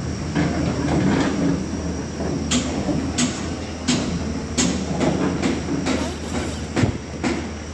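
Heavy diesel machinery running steadily with a low hum, with sharp clicks or clanks about every two-thirds of a second.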